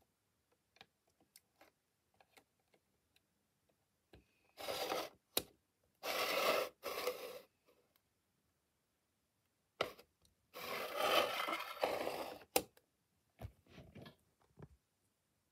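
Hands handling a diecast model reach stacker on its display base: three bursts of scraping and rubbing, the last about two seconds long, with scattered light clicks in between and near the end.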